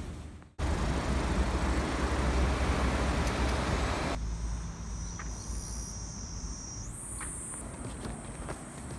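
Roadside traffic noise, a steady rumble with a wide hiss, for the first four seconds. Then quieter open-air sound with a high, steady insect drone that jumps higher about seven seconds in, and a few light footsteps of sandals on brick paving.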